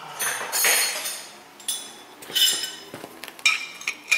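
Steel hand tools clinking as a wrench is picked up and fitted onto an oxygen sensor threaded into a new catalytic converter pipe. A few sharp metallic clinks, each ringing briefly.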